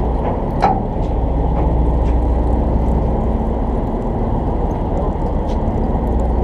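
Boat engine running steadily, a loud constant drone, with a single sharp knock a little over half a second in.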